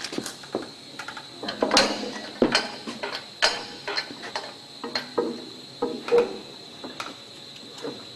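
Irregular metallic clanks and knocks, about a dozen, some with a short ring, over a faint steady high whine.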